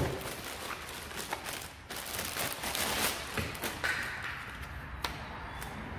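Clear plastic bag crinkling and rustling as a boxed nail gun is unwrapped and lifted out, with light knocks and a sharp tap about five seconds in.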